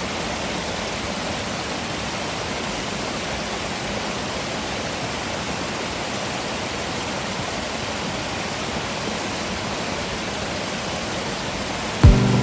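Steady, even rush of water from a waterfall. Soft background music comes in near the end.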